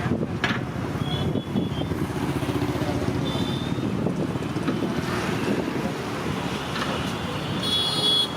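Busy street noise: a steady rumble of passing traffic, with a few brief high ringing tones cutting through, the loudest one near the end.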